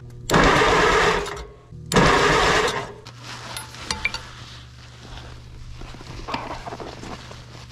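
A 1957 Allis-Chalmers IB tractor engine cranked over by its starter in two short bursts of about a second each, without firing, while spark is being checked. A steady low hum runs underneath, and light clicks follow the second burst.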